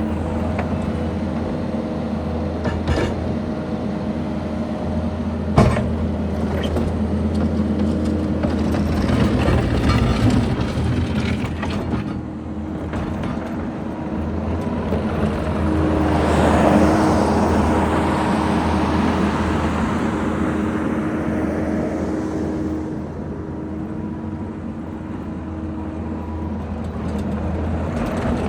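Kubota SVL75-2 tracked skid steer's diesel engine running steadily as the machine is operated, with a sharp knock about five and a half seconds in. The engine rises under load a little past halfway, then settles back.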